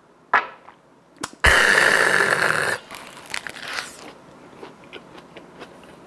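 A short click, then a loud hiss lasting over a second, then a person's mouth chewing a mouthful of food with soft, irregular crunchy clicks.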